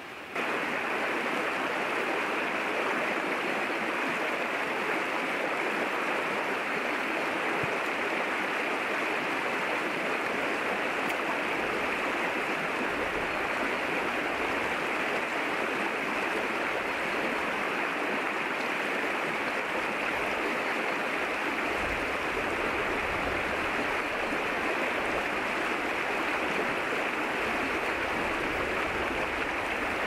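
Small stream running fast over stones, a steady rush of water that starts suddenly about half a second in.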